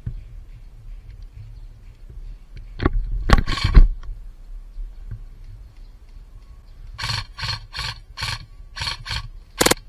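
An airsoft rifle firing semi-automatic, about seven short sharp shots roughly half a second apart in the last three seconds. Before that, a few loud knocks with a deep thud, like the gun being handled against the camera.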